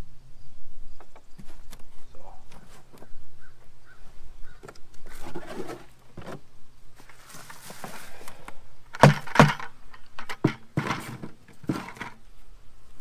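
Hands rustling and scraping through loose potting soil, and black plastic 5-gallon buckets knocking as they are handled and set down, with a run of louder hollow knocks in the second half.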